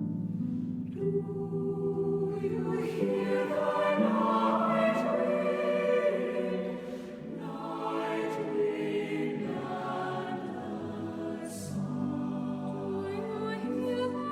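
Slow music with several voices singing long held notes in harmony, the chords changing every second or two.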